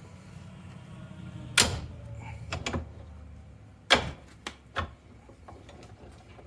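Sharp metal knocks and clunks from the Ford reverser transmission's parts being handled: two loud ones about a second and a half and four seconds in, with a few smaller ones between and after.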